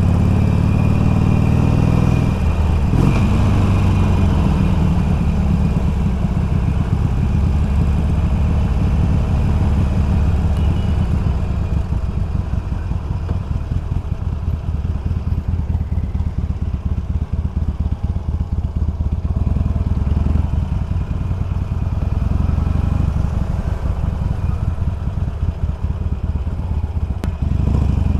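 Harley-Davidson Iron 883's air-cooled V-twin engine running as the motorcycle is ridden along, a steady deep pulsing exhaust note that eases off somewhat through the second half.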